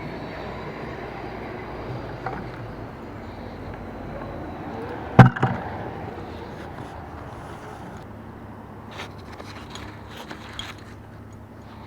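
Steady rush of moving water, with one sharp knock about five seconds in and a few faint clicks near the end.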